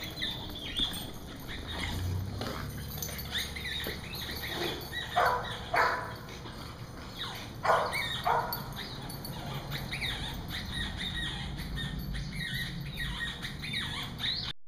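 Small dogs barking and yipping in rapid, overlapping short high calls, with two pairs of louder barks about five and eight seconds in.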